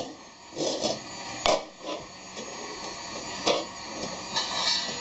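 Lids knocked and scraped on a floor by a small child: a few sharp clacks, the loudest about a second and a half in and again near three and a half seconds, between stretches of scraping and rattling.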